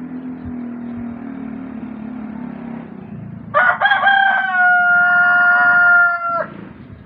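Rooster crowing once, starting about three and a half seconds in. A few choppy opening notes lead into a long held note that cuts off sharply after nearly three seconds. Before the crow, a steady low hum is heard.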